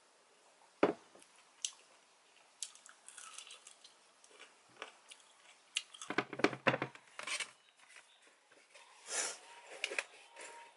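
Eating at a table: a glass mug set down with a thump about a second in, then a metal fork clicking against a ceramic plate and chewing of toast and peach slices. A brief rustle near the end.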